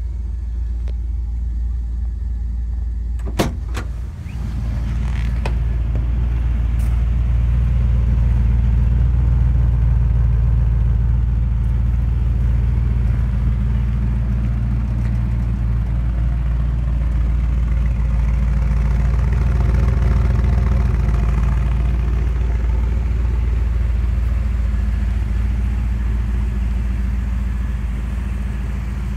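1972 Chevrolet C20 pickup's engine idling steadily. A few sharp clicks and a knock come about three to five seconds in, as the cab door is opened and shut, and the idle is then heard from outside the truck, a little louder.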